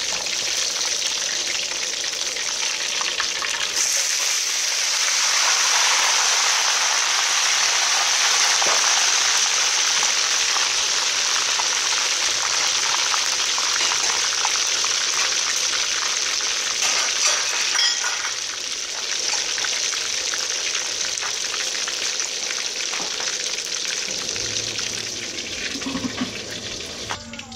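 Whole fish deep-frying in hot oil in a steel wok: dense, steady sizzling and crackling from the bubbling oil. It grows quieter in the last few seconds.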